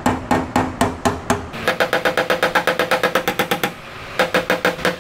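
Hammer striking sheet steel backed by a makeshift dolly: quick, even, ringing blows at about five a second. The ring jumps higher in pitch about a second and a half in, and the blows stop briefly about three-quarters of the way through before starting again.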